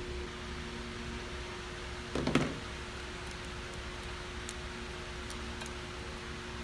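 Steady mechanical hum with one brief knock about two seconds in and a few faint ticks afterwards.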